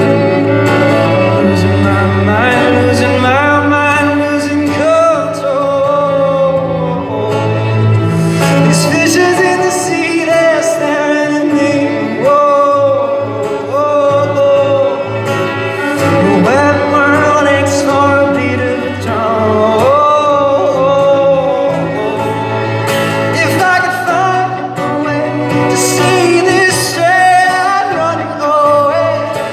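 A male singer singing a pop song live over instrumental accompaniment, his melody line moving over low held chords.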